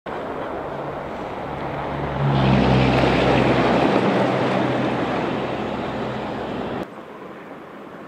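Highway traffic on a snow-covered road, a steady rush of tyres with a vehicle's engine hum growing louder about two seconds in and slowly fading as it passes. Near the end the sound drops suddenly to quieter traffic.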